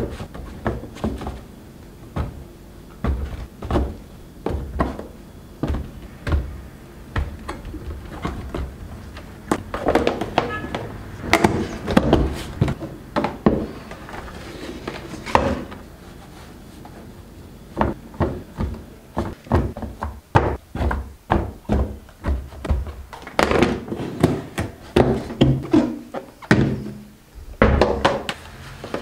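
Irregular thunks and taps of kitchen items being handled and set down, sometimes several in quick succession.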